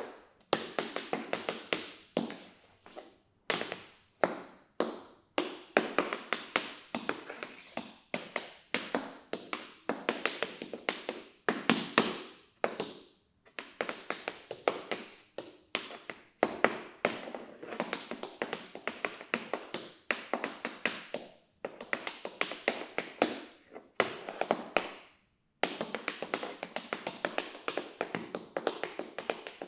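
Tap shoes striking the floor in a solo tap dance improvisation: fast runs of crisp clicks broken by short pauses, with no music.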